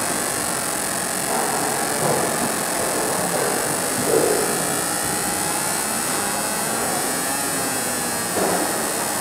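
Fiber laser marking machine engraving an aluminium plate: a steady high hiss as the beam ablates the metal, with a few faint swells lower down.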